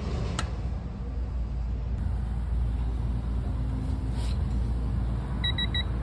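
Three quick high beeps near the end from a digital torque adapter on a wrench as a brake caliper bolt is tightened toward its 25 newton-metre setting, over a steady low hum, with a single sharp click about half a second in.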